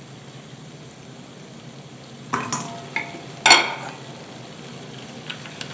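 Choux-pastry rings sizzling steadily in hot frying oil, with a few sharp metallic clinks on a stainless steel bowl as fried rings are lifted into it, about two and a half and three and a half seconds in, the last the loudest.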